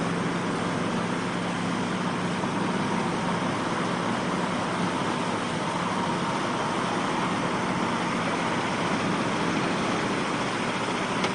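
A heavy truck's engine running steadily as it drives up out of surf onto the beach, under a continuous rush of wind and waves.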